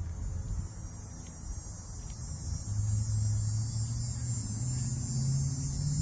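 Dog-day cicadas buzzing in a steady, high-pitched drone that swells toward the end. A louder low hum joins about three seconds in.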